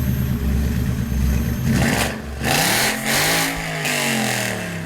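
1967 Shelby GT500's 428 V8 idling, then revved: about two seconds in, the engine note climbs and drops back, with the exhaust blasting on each rev.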